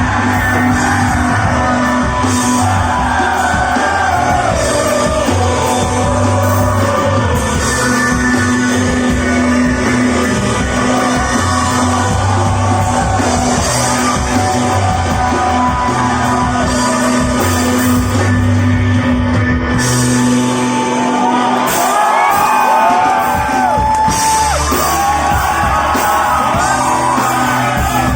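Live rock band playing with a singer, in a large hall. The bass drops out for a few seconds a little after twenty seconds in, then comes back.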